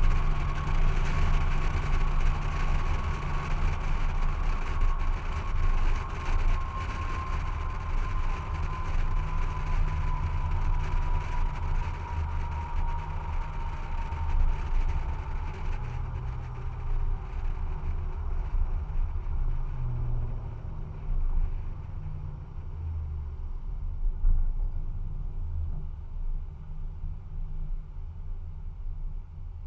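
Straight-piped 2014 Toyota Tundra 4.6-litre V8, its stainless exhaust replacing the stock muffler, driving along with a low exhaust rumble mixed with tyre and road noise. A steady whine sinks slowly in pitch through the first half, and the sound grows softer in the second half.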